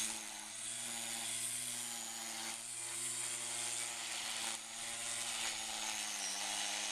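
Black & Decker cordless string trimmer running, its electric motor giving a steady hum under the hiss of the spinning line, dipping briefly a couple of times.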